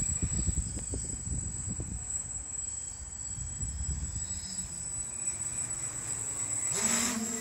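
Quadcopter with Sunnysky 800kv motors and 11x4.5 carbon props humming in flight, heard faintly under gusty wind rumble on the microphone. Near the end a steady low drone from the quad comes through more clearly.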